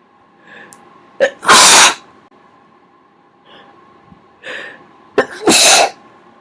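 A person sneezing twice, each sneeze covered and each led in by a quick breath-in, then a sharp catch and a loud burst. The first comes about a second and a half in, the second near the end.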